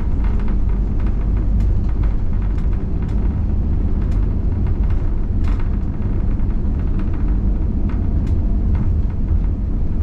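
Cabin noise of an Airbus A320-family airliner taxiing after landing: a steady low rumble of the idling engines and the wheels rolling on the taxiway, with faint light knocks now and then.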